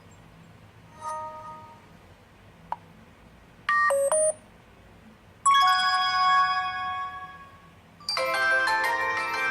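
HTC Desire 601 smartphone playing its built-in alert tones one after another. A soft chime comes about a second in, a short bright tone just before four seconds, and a louder chime at five and a half seconds that rings out and fades. A busier ringtone melody starts about eight seconds in.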